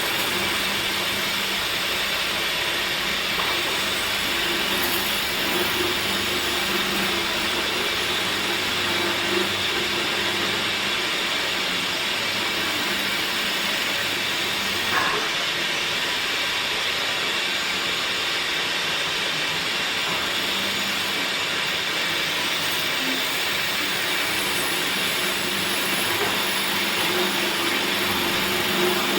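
Woodworking machinery running steadily: a constant hissing noise over a low hum, with a short rising squeal about 15 seconds in.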